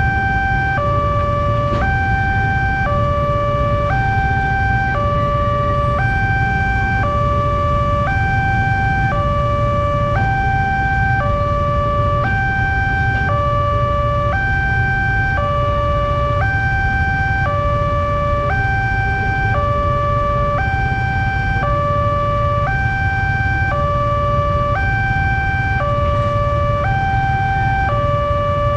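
Indonesian railway level-crossing alarm sounding from its horn loudspeaker: an electronic two-tone warning that alternates high and low, each tone about a second long, steady in pitch, with a steady low rumble underneath.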